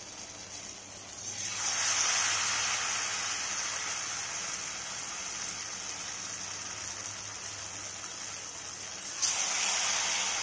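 Batter-coated susiyam balls deep-frying in hot oil in a non-stick pan with a steady sizzle. The sizzle swells sharply about a second in and again suddenly near the end as more balls are dropped into the oil.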